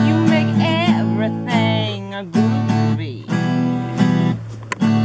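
Acoustic guitar strummed in repeated chords, with a voice singing briefly over it about a second in.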